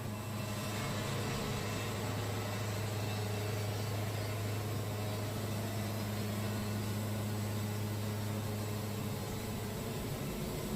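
Wood-Mizer band sawmill running steadily, its engine humming evenly while the band blade cuts along a pine log.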